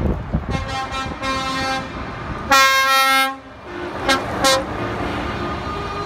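Trucks in a passing convoy sounding their horns over the rumble of their engines: a few short toots, then one loud horn blast lasting under a second, then two more short blasts.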